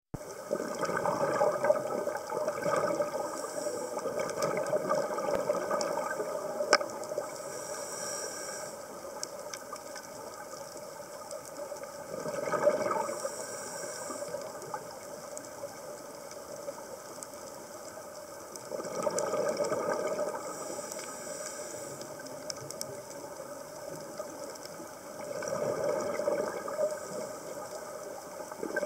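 Scuba diver breathing through a regulator: a short hissing inhale through the demand valve, then a longer rush of bubbling exhaled air, repeating about every six to seven seconds.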